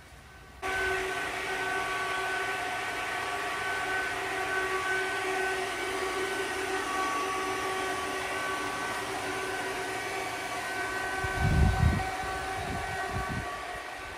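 Steady mechanical drone with several held tones over a hiss, starting suddenly about half a second in, with a few low thumps near the end.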